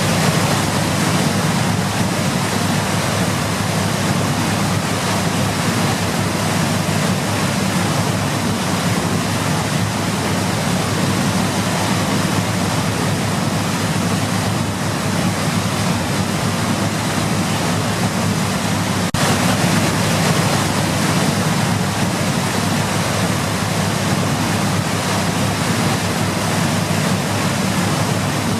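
Steady rushing water noise, a continuous even roar used as white noise, with a single faint click about two-thirds of the way through.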